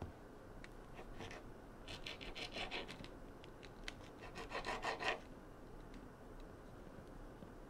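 Kitchen knife cutting refrigerated tube biscuit dough into pieces on a cutting board: faint scraping knife strokes in three short runs, the last and loudest about four to five seconds in.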